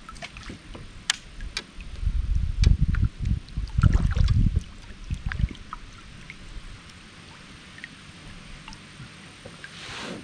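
Kayak drifting on a river: water gurgling against the hull with scattered small clicks and knocks, and a louder low rumbling stretch from about two to five and a half seconds in.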